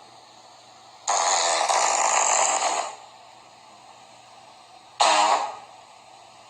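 Two farts: a long, hissy one starting about a second in and lasting nearly two seconds, then a short one with a low buzzing pitch about five seconds in.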